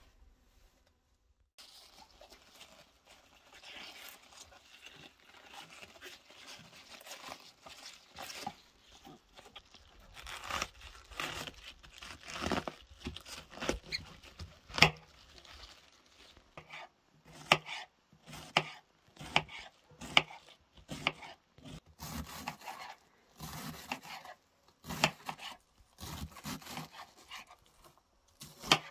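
A kitchen knife cutting a head of white cabbage on a wooden cutting board: crisp crunching as the blade works through the leaves. In the second half it settles into a run of short slicing strokes, about one or two a second, as the cabbage is shredded finely.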